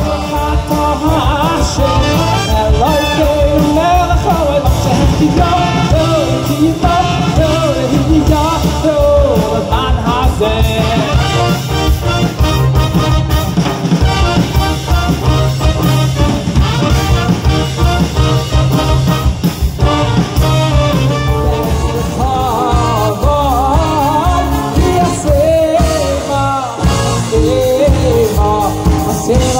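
Live wedding band playing upbeat dance music with a steady beat: a male vocalist sings over drums, electric guitar, keyboard and horn.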